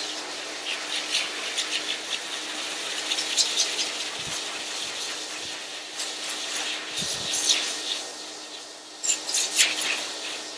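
Dog grooming dryer blowing air through its hose onto a curly coat: a steady rush of air over a low motor hum, with irregular gusty flutters as the airflow moves across the fur.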